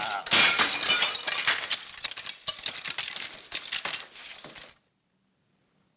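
Crockery smashing: a loud crash about a third of a second in, then a run of clinking and clattering of plates and broken pieces that thins out and cuts off about three-quarters of the way through.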